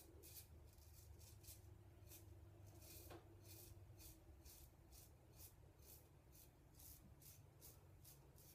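Faint scrapes of a Gillette Old Type open-comb safety razor cutting stubble, a run of short strokes at about two a second.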